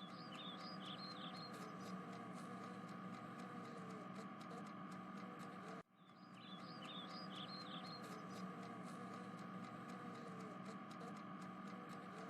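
Faint background ambience: a steady hum with a short run of high chirps about a second in. It cuts out briefly near the middle, then repeats with the same chirps, like a looped track.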